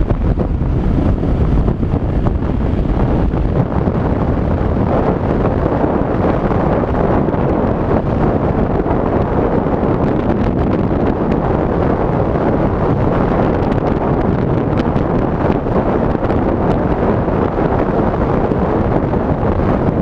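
Wind buffeting the helmet-mounted action camera's microphone at riding speed, a steady rushing noise, over the running of a Yamaha XT600's single-cylinder four-stroke engine.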